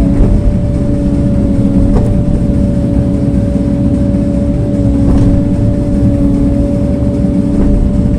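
Heavy earthmoving machine's engine running steadily under work: a loud, constant low rumble with a steady hum.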